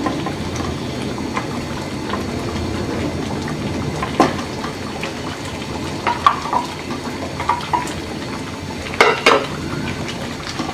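A pot of curry simmering with a steady bubbling hiss, while a steel bowl and a wooden spatula knock and scrape against the pot as eggs are tipped in and stirred. There are several sharp clinks, the loudest a pair about nine seconds in.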